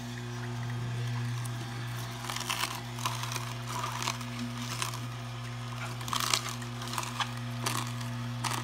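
Omega J8006HDS masticating juicer running: a steady low motor hum, with irregular crackling and crunching as its slow auger crushes green produce.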